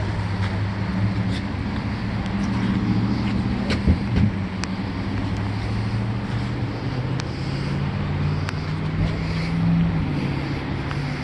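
A vehicle engine running steadily, its pitch shifting slightly near the end, with a couple of sharp knocks about four seconds in.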